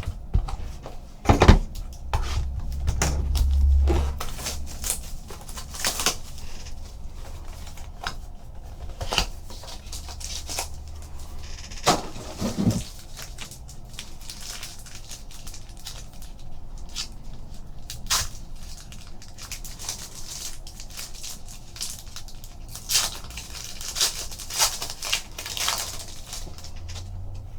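Trading card boxes and packs being opened and handled: wrappers crinkling and tearing, with scattered clicks and taps of cardboard and cards. A low rumble runs for a few seconds about two seconds in.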